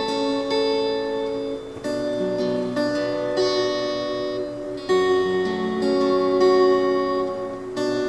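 Background music on acoustic guitar: plucked notes and chords, with a new chord struck every few seconds.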